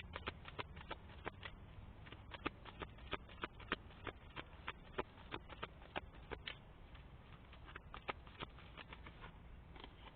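Tarot cards being handled and shuffled: a quiet run of small, irregular clicks and taps, several a second, thinning out near the end.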